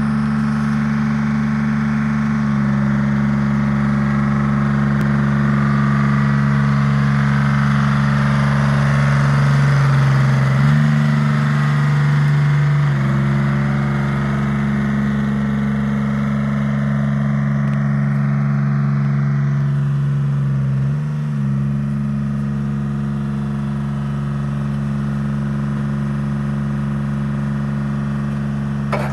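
Detroit Diesel 3-53 three-cylinder two-stroke diesel of a Prentice 180 log loader running steadily, its engine speed shifting down and back up a few times.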